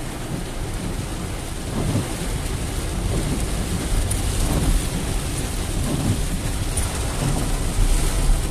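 Heavy rain drumming on a car's roof and windshield, heard from inside the cabin, as a dense steady hiss over a low rumble.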